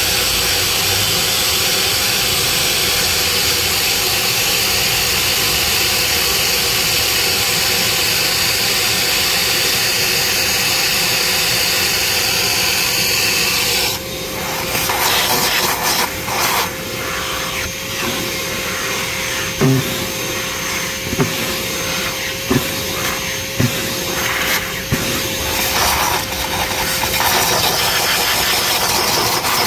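Steady loud hiss of a running tool or machine. About halfway through it gives way to short stop-start bursts with a few sharp clicks.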